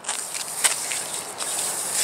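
Hand pressing and rubbing blue painter's tape down onto a brick chimney's top edge: a scratchy rubbing rustle with a few sharper scrapes.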